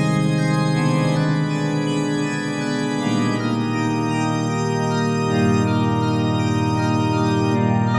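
Background music: sustained organ chords, each held for a couple of seconds before moving to the next.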